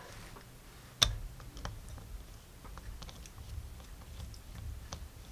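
Small metal clicks and handling noise as a screwdriver is set into and works the bottom screws of a revolver's grip frame, with one sharp click about a second in and lighter ticks after it.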